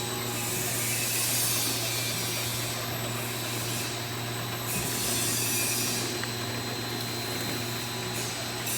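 Automatic liquid-product filling and packing line machinery running: a steady mechanical hum and rattle, with a high hiss that comes and goes every second or two.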